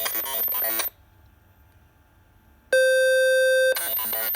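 An Arduino's synthesized text-to-speech voice, buzzy and robotic from a small speaker, talking until about a second in; after a short pause a steady beep sounds for about a second, then the synthetic voice starts again.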